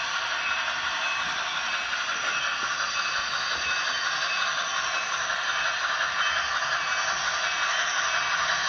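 Model steam locomotive and freight cars running around the layout's track, a steady clatter and rattle of wheels on the rails.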